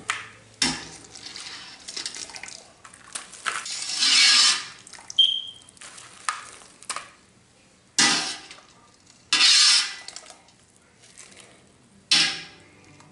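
Boiled crawfish and potatoes being scooped out of a stainless steel stockpot with a wire skimmer and dropped onto an aluminium sheet pan: repeated scoops of metal scraping and clattering with water splashing and dripping, every second or two. A short ringing clink comes about five seconds in.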